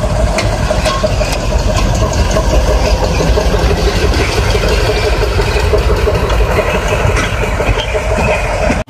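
Diesel shunting locomotive passing close by, its engine running with a steady low rumble. Cuts off suddenly near the end.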